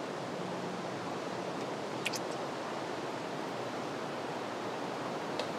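Steady outdoor background hiss, with two brief high chirps, one about two seconds in and one near the end.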